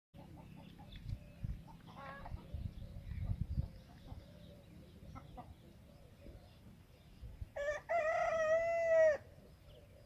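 A rooster crows once, about three-quarters of the way through: a short first note, then a long held call lasting over a second. Before it there are faint clucks and low thumps.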